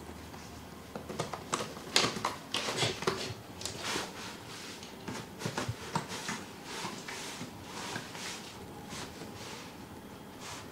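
Cats pawing, clawing and rubbing at a corrugated cardboard scratching pad: irregular scratchy scrapes and light taps, busiest and loudest in the first few seconds.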